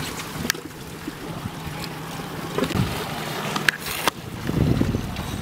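Steady low hum of a boat's engine under wind on the microphone, with a few sharp clicks and a stronger gust of wind near the end.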